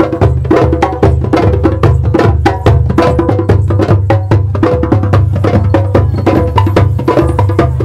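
Background music with fast, busy percussion over a steady bass line.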